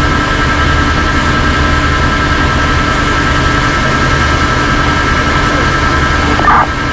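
Fire truck engine running steadily, heard from inside the cab as a low drone. A short radio tone sounds near the end.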